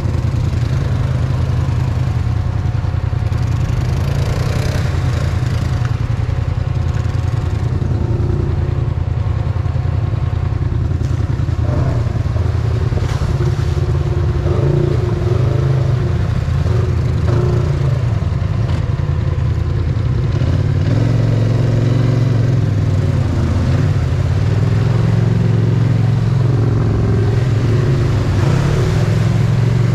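ATV engine running steadily at low speed, with Polaris RZR side-by-side engines revving as they drive through a muddy water hole. The low engine note steps up a little about two-thirds of the way through.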